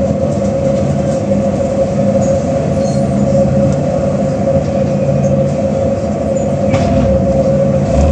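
Cabin sound of a Higer KLQ6129GQ2 city bus with a Voith automatic transmission: a steady high whine over a low, even drivetrain hum. It is the weird engine noise the rider set out to record.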